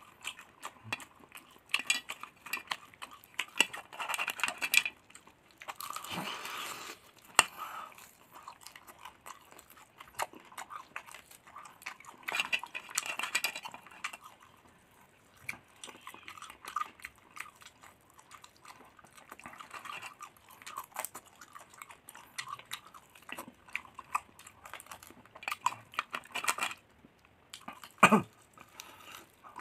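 A person chewing and biting crunchy fried duck eaten by hand off the bone: wet chewing, crunching and frequent sharp clicks, with one loud sharp crack near the end.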